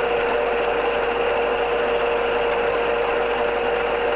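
Town AE4 radial arm drill running, its spindle turning on power feed as it feeds down. A steady machine hum with one constant tone and no change in pitch.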